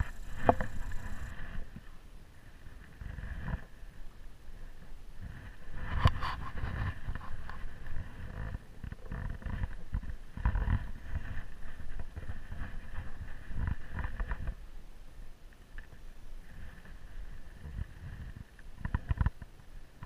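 Handling noise of a bath towel and a Pembroke Welsh corgi moving close to the microphone: cloth rustling and scuffing with irregular low thumps as the dog wriggles free of the towel, quieter in the last few seconds apart from a few sharp clicks.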